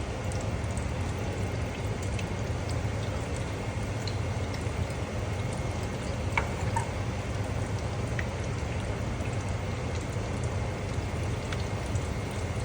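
Chicken pieces deep-frying in hot oil at about 350°F, a steady sizzle with scattered small pops.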